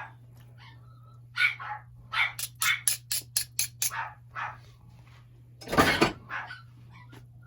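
A dog barking in short, repeated barks, with one louder bark about six seconds in, over a steady low hum.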